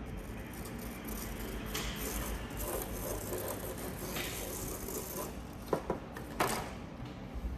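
Small plastic spoon and fine coloured sand handled over a sand-art card: soft scraping and sprinkling, with a few sharp clicks about three quarters of the way through, over a steady low background hum.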